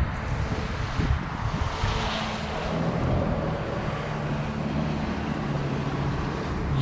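OMP Hobby M2 brushless RC helicopter in flight, its rotor whirring as a steady hum that shifts slightly in pitch a few times as the rotor load changes, with wind noise on the microphone.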